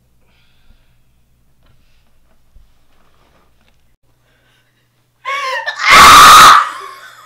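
Mostly quiet, then about five seconds in a young woman's strained wail breaks into a short, very loud scream.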